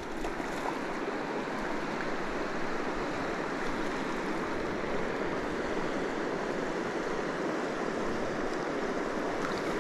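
A high, fast-running river rushing past a rocky bank: a steady, even rush of moving water.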